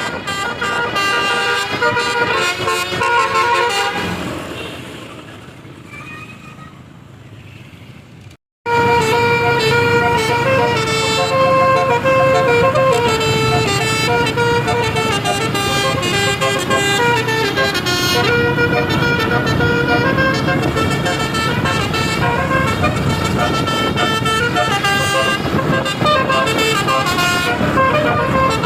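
An 18-note Basuri telolet bus horn playing a melody, stepping quickly from note to note over the rumble of the bus. The sound fades down, breaks off for a moment about a third of the way in, then comes back loud and the horn tune carries on.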